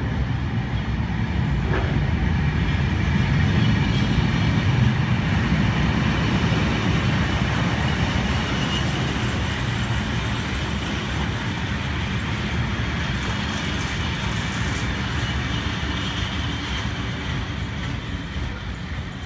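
Long freight train of open box wagons rolling past, a steady rumble of wheels on the rails. It swells a few seconds in and then slowly fades toward the end.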